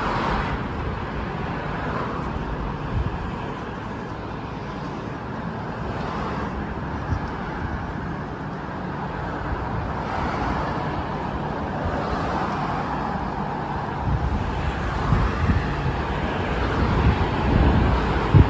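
Road traffic: cars passing one after another, each swelling and fading. Heavier low rumbling comes in the last few seconds.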